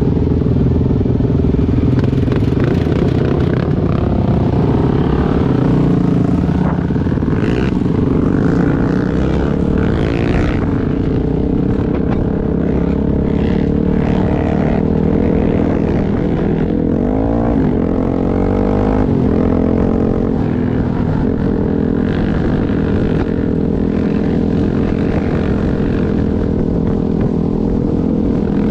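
ATV engine running while the quad rides along a dirt track, its pitch rising and falling a few times with the throttle.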